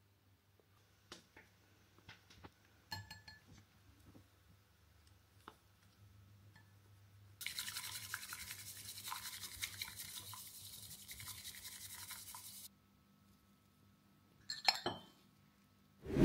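Matcha being whisked briskly with a bamboo chasen in a cup: a fast, even brushing swish lasting about five seconds. It is preceded by a few light taps and clinks of utensils, and a sharp clink comes near the end.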